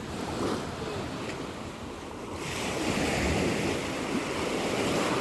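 Sea waves washing onto the shore, with a wave swelling and breaking about two and a half seconds in, and wind buffeting the microphone.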